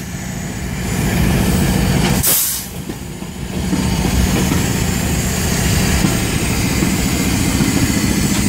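A GE D9-40C and an EMD SD60E diesel locomotive running light and rolling slowly past, their engines giving a steady low hum. A short burst of hiss comes about two seconds in.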